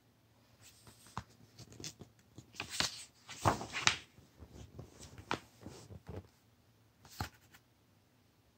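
Paper rustling and brushing as the pages of a picture book are turned and smoothed down by hand, a series of soft rustles that stops about seven and a half seconds in.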